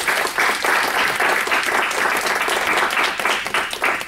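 Audience applauding: many people clapping steadily at the end of a talk.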